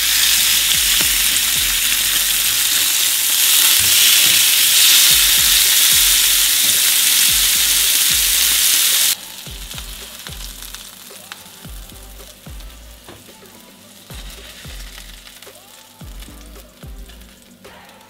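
Red-fish steaks sizzling loudly as they fry in a hot grill pan just after being turned over. The sizzle cuts off suddenly about halfway through, leaving quiet handling clicks as the fish is lifted out onto a plate.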